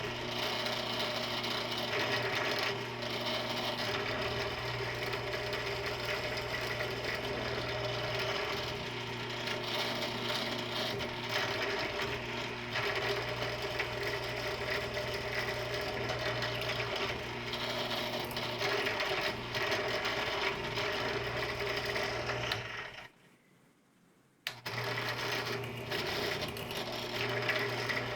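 Drill press motor running steadily while drilling holes in a skateboard hub motor, ready for tapping. It cuts out abruptly for about a second and a half near the end, then runs on.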